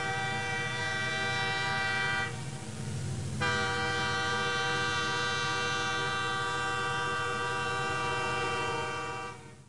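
Train whistle sounding as a steady chord in two long blasts: the first breaks off about two seconds in, and after a pause of about a second a second, longer blast holds until near the end. A low rumble runs underneath.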